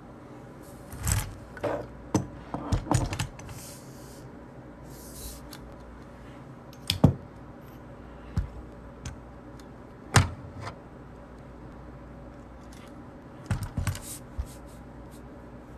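Scattered sharp clicks and taps, in small clusters about a second in, around 2 to 3 seconds, once loudly about 7 seconds in, again near 10 seconds and twice near the end, with two short hissy rustles in between, over a steady low hum.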